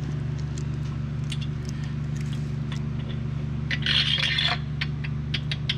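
Light clicks and ticks of small metal parts and tools being handled, with a short scrape about four seconds in, over a steady electrical hum.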